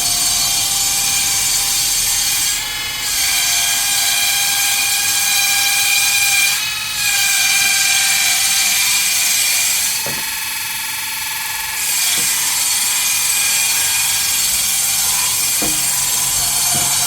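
Electric woodworking power tool running on Bayur wood: a steady motor whine with hiss, dipping briefly about 3 and 7 seconds in and changing pitch for a couple of seconds near the middle.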